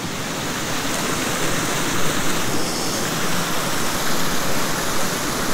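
Small mountain trout stream running over rocks: a steady rush of water, getting a little louder in the first second.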